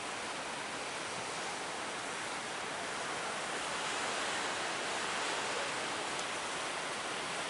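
Large ocean waves breaking as surf, a steady rushing wash that swells slightly louder about halfway through.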